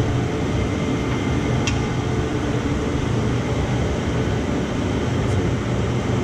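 Steady drone of shop machinery, like a running ventilation fan or air-handling unit, with a low hum in it. Two faint light clicks come about a second and a half in and again near the end, as the pressed-out bearing and the rotor are handled.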